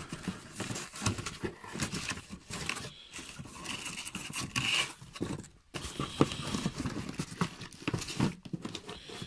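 Cardboard boxes and plastic-bagged parts being handled: irregular rustling, crinkling and small knocks and scrapes.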